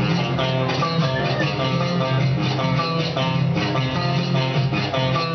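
Marinera limeña music played on guitar, an instrumental passage with no singing.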